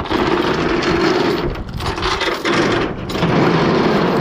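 Heavy machinery running loudly and steadily, dipping briefly twice.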